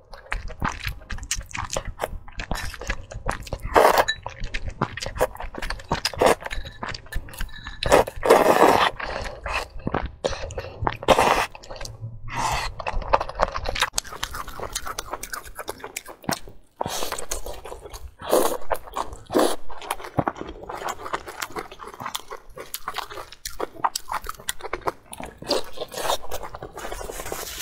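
Close-miked mouth sounds of eating: fire noodles slurped from chopsticks, then chewing and biting on sauce-covered fried food, in irregular wet bursts with small clicks.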